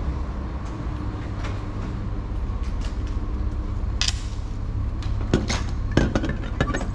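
Bottles and goods being handled at a shop checkout counter: sharp clicks and knocks as items are put down and scanned, most of them between five and seven seconds in, over a steady low hum.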